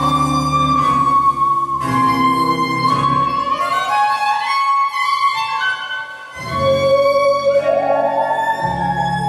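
Instrumental music: a high melody line holding long notes and sliding between them, over a low sustained accompaniment that drops out briefly just past the middle.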